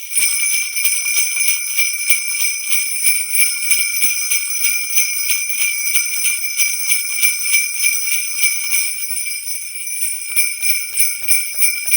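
Trophy 13-bell sleigh bells on a handle shaken in a steady rhythm, about two to three shakes a second, the bells jingling continuously.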